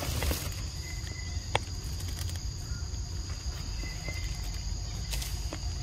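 Steady chorus of insects, a shrill high hum made of two constant tones, with one sharp click about a second and a half in and a low rumble underneath.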